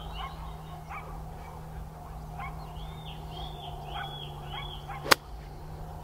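A golf club strikes the ball once with a sharp crack about five seconds in. Before it, birds call in the background, including a run of four short arched chirps.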